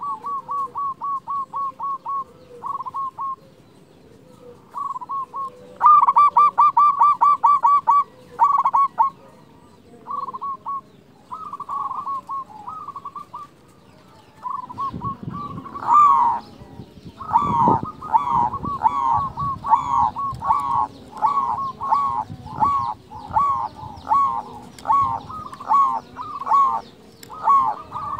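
Zebra dove (perkutut) song: series of short staccato cooing notes, coming in quick runs early on, loudest in a run about six seconds in, then settling into a steady string of about two notes a second. A brief low rustling noise sits around the middle.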